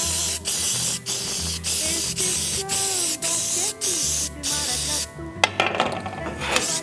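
Aerosol cooking spray hissing in short repeated bursts, about two a second, as it coats the cups of a metal muffin pan. About five seconds in the hissing stops and the metal pan clatters as it is set down on the stovetop.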